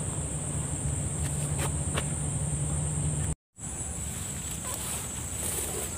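Steady high-pitched chorus of insects (crickets or cicadas) in the field, over a low steady hum, with a few faint clicks. The sound cuts out completely for a moment just over three seconds in, then resumes.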